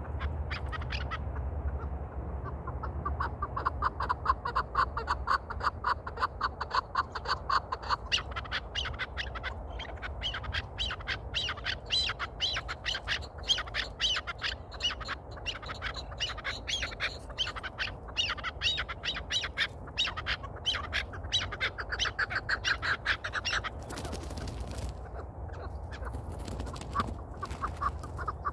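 Chukar partridges calling: a long run of rapid, repeated clucking notes, several a second, which climb higher in pitch after the first several seconds. Two short bursts of noise come near the end.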